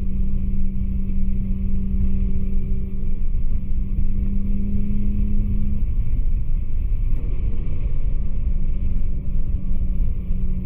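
Cabin sound of an Infiniti Q50 3.0t's twin-turbo V6 cruising at steady highway speed: a steady engine drone over low road and tyre rumble. The engine tone fades about halfway through, leaving mostly the rumble.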